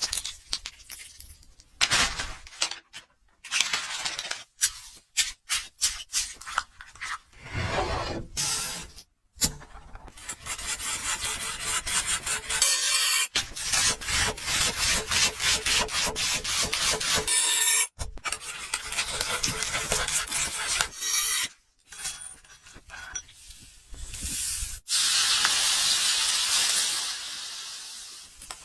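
Food-preparation sounds: rapid, repeated rubbing and scraping strokes with scattered clicks, and a denser hiss near the end.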